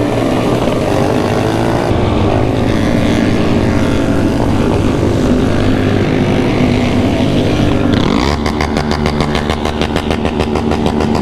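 Many motorcycle engines running together as a big group rides at city speed, mixed with wind and road noise. About eight seconds in, a nearby engine takes over with a fast, even pulsing.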